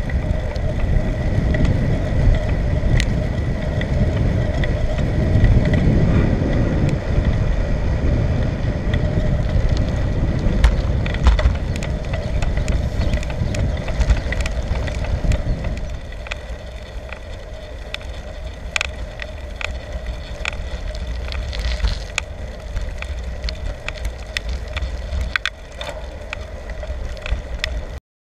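Wind rushing over the microphone and the rolling noise of a bicycle on the move, with scattered rattling clicks. The wind rush eases about two-thirds of the way through, and the sound cuts off just before the end.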